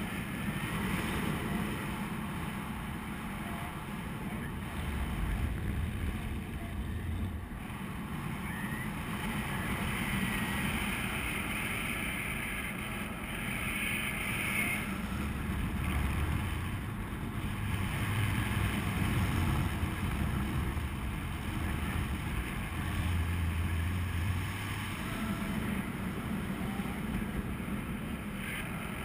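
Wind noise from the rushing airflow of a paraglider in flight, buffeting the camera's microphone: a steady rush with a low, gusty rumble that swells now and then.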